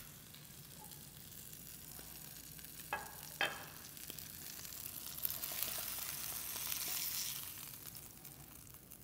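Hot oil sizzling under a tilapia fillet in a stainless steel skillet, with the burner already off; the sizzle swells around five to seven seconds in. Two short clinks about three seconds in, a ceramic plate being set down on the counter.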